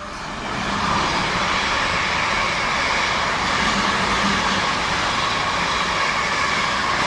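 A passing electric train, with a steady rush of wheel and rail noise and a hum from the train. It swells up within the first second and then holds level.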